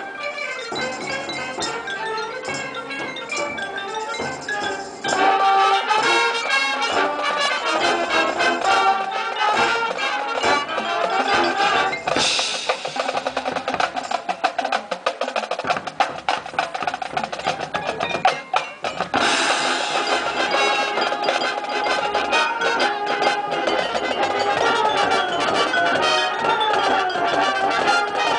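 Marching band playing its field show, heard from the stands: winds over drums and front-ensemble mallet percussion. It gets louder about five seconds in, and midway a stretch is carried mostly by rapid drum and percussion strokes, set off by a bright crash at its start and another as the full band comes back in.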